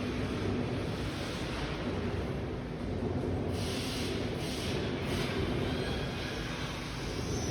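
Steady workshop machinery noise with a low hum, broken by a few short hissing bursts about midway through.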